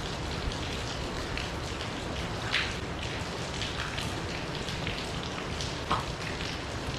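Small wood fire crackling in a compact B6-kun fire grill: a steady hiss with scattered pops, two sharper ones about two and a half and six seconds in.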